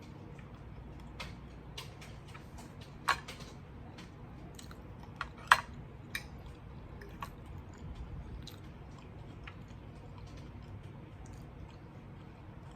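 Close-up eating sounds: chewing with scattered sharp clicks and smacks, the two loudest about three seconds and five and a half seconds in.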